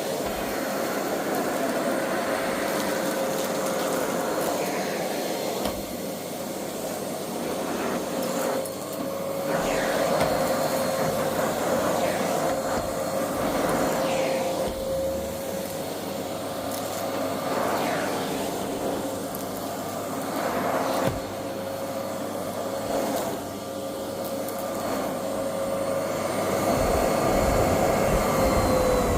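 Goldmaster electric vacuum cleaner running, its motor holding a steady whine while the rush of sucked air swells and fades every few seconds. At the very end the motor's pitch starts to drop as it winds down.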